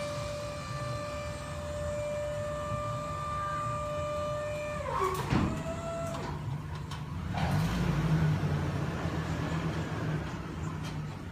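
The dumpster lift's hydraulic pump motor on a pickup truck whines steadily as it works the lift arms, then winds down with a falling pitch and a clunk about five seconds in. A brief second whine follows, then the truck's engine runs louder.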